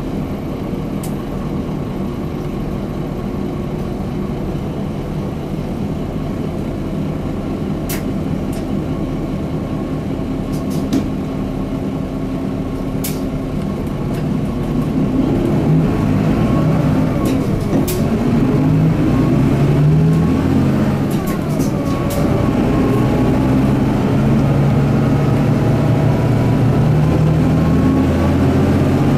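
Cabin sound of a Mitsubishi Fuso Aero Midi MK bus's 6M61 six-cylinder diesel, idling steadily while stopped. About fourteen seconds in, it gets louder as the bus pulls away, the engine note rising and falling through manual-gearbox upshifts.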